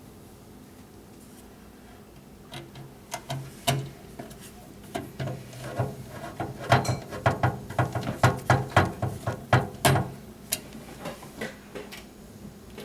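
A rapid, irregular series of clicks and light knocks from handling computer parts during a motherboard install, densest in the middle and thinning out near the end.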